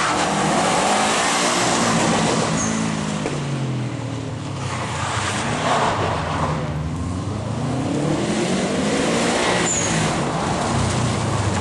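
Rally car engine revving hard and easing off several times as the car is driven at speed through corners on a wet road, over a steady hiss.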